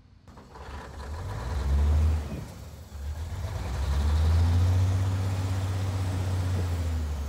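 A 1986 International tandem dump truck's engine starting from cold and revving: it catches just after the start and revs up, dips briefly about two and a half seconds in, then revs up again and settles into a steady run.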